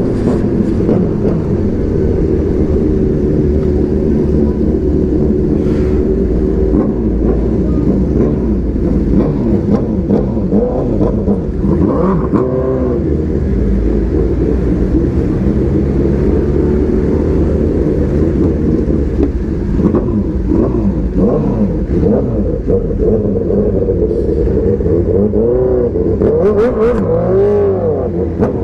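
Sport motorcycle engine running under way, the revs rising and falling through gear changes, with low wind rumble on the microphone.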